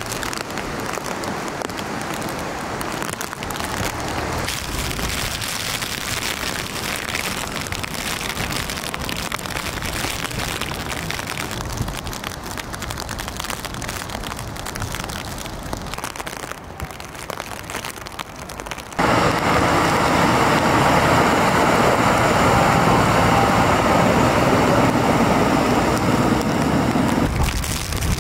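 Steady rushing noise of water in a flood, heavy rain and running floodwater, with no distinct events. About nineteen seconds in it cuts abruptly to a louder, fuller rush, which drops back just before the end.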